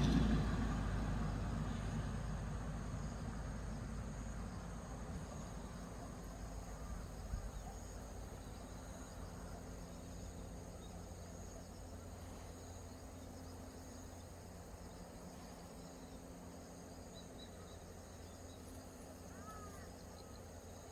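Faint outdoor ambience of steady, high insect chirring over a low hum. A passing vehicle's sound fades out at the start, and a few faint chirps come near the end.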